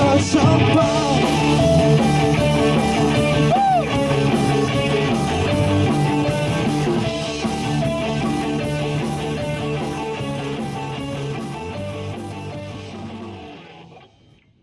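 Rock band playing the instrumental outro of the song, with guitars and a steady bass line, fading away over the last few seconds into silence.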